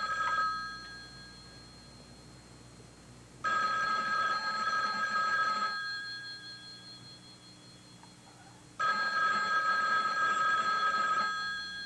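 Telephone bell ringing: the end of one ring, then two more rings of about two seconds each, about three seconds apart.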